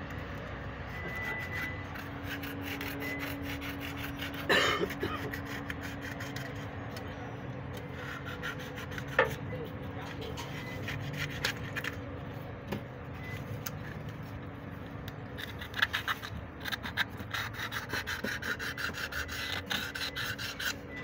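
Abrasive cloth rubbed by hand inside a diesel engine's cylinder bore, a scratchy back-and-forth scraping that turns into quick, regular strokes over the last few seconds, with two sharp knocks along the way.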